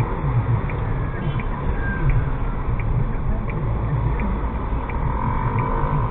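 Steady engine and road rumble inside a Suzuki Jimny JB74's cabin, with the turn-signal indicator ticking evenly, about three ticks every two seconds.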